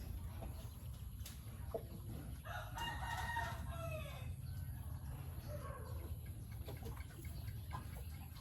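A rooster crowing once, a long pitched call starting about two and a half seconds in and falling at its end, over a steady low rumble.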